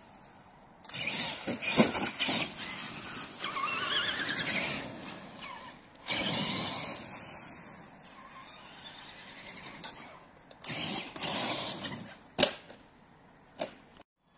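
Stock Traxxas Summit 1/10 RC truck on a 4S LiPo, its brushed electric motor and geared drivetrain whining in repeated bursts of throttle, the whine rising in pitch as it speeds up. A sharp knock near the end as the truck flips over onto its roof.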